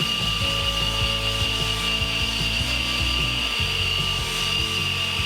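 Hot air welding gun running with a steady high whine, passed over a welded seam in sheet vinyl to warm and blend the weld's colour without touching the material.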